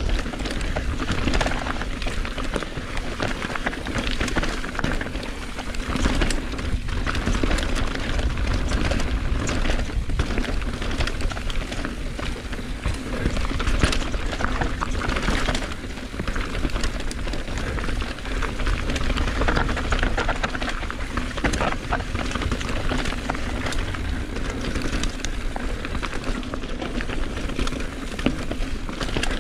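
Mountain bike riding down a rough trail: continuous tyre and trail noise, with frequent knocks and rattles over bumps and wind rumbling on the helmet-camera microphone.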